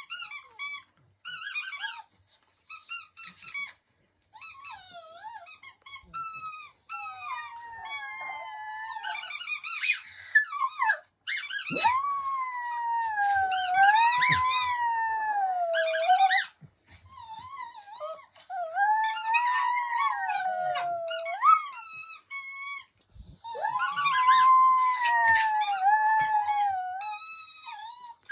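A puppy howling: short rising cries grow into long, wavering howls of several seconds each, three of them in the second half. A squeaky toy squeaks in quick runs, mostly in the first few seconds.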